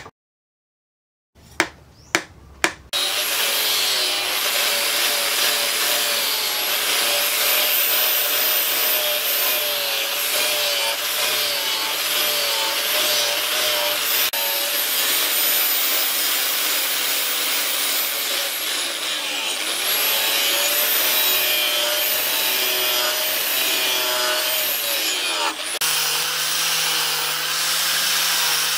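A few sharp knocks, then an electric angle grinder with a backed sanding disc running against a steel axe head, grinding it. The motor's high whine dips in pitch a couple of times as the disc is pressed on.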